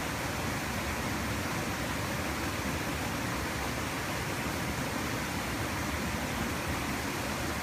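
Small stream flowing, a steady even rush of water.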